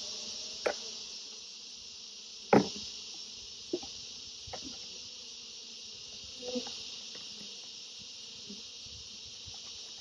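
Steady high-pitched chorus of insects, with bees buzzing around an open hive. A few short knocks and clicks of the plastic tube and alcohol-wash bottle being handled as bees are tipped in, the loudest about two and a half seconds in.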